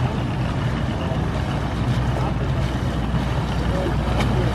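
Bass boat's outboard motor running steadily with a low rumble, mixed with wind noise on the microphone.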